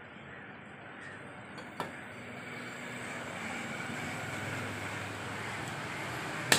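Steady rumble of passing motor traffic that grows louder, with a light knock about two seconds in. Near the end comes a single sharp chop of a butcher's cleaver into a wooden chopping block, the loudest sound.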